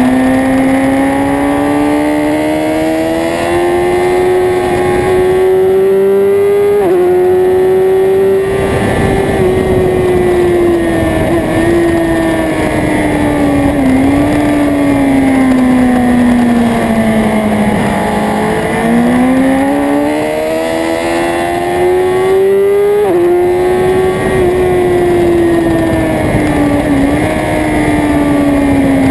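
Motorcycle engine at speed on a race track, pitch climbing under hard acceleration with a sudden drop at an upshift about a quarter of the way in, then falling steadily under braking and rolling back on the throttle to climb again, with another upshift drop near the end; steady wind and road rush underneath.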